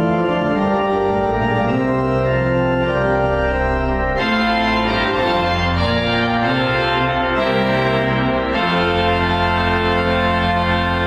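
Pipe organ playing the closing voluntary of a church service: full sustained chords over deep pedal notes, moving to a new chord every second or two.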